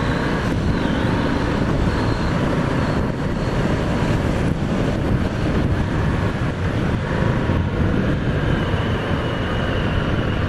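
Harley-Davidson FXDR's Milwaukee-Eight 114 V-twin running at road speed, with wind rushing over the microphone as a steady, heavy rumble.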